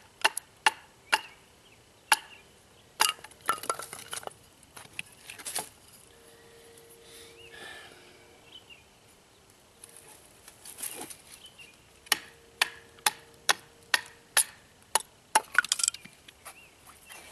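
A survival knife chopping into and splitting a stick of wood to make a bow-drill spindle: sharp, loud wooden knocks and cracks, irregular at first, quieter through the middle, then a quick run of about two strikes a second near the end.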